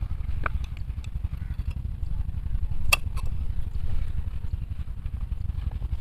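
Scissors cutting through a rubber football bladder, with a few sharp snips, the loudest about three seconds in, over a steady low background rumble.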